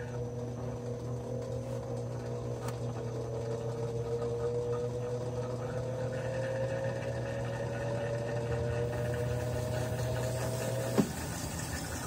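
Consul top-load washing machine starting its spin: the motor's whine climbs steadily in pitch over a steady hum as the tub speeds up. About eleven seconds in there is a sharp click and the whine and hum cut off, leaving the tub spinning on.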